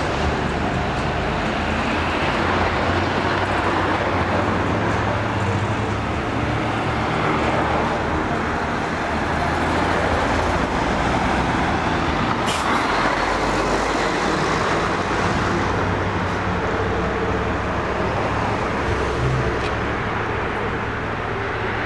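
Steady city traffic noise: a continuous rumble of road vehicles going by, with one brief sharp sound about halfway through.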